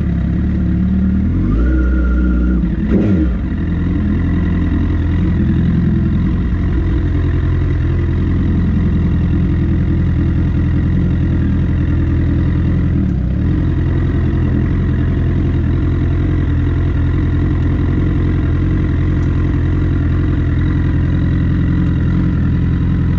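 Sport motorcycle engine idling steadily, with a short blip of the throttle about three seconds in.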